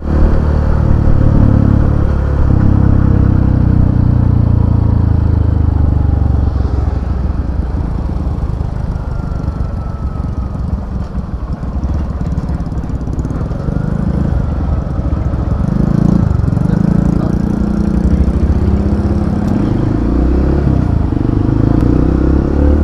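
Vehicle engine running with a heavy low rumble, its pitch shifting now and then.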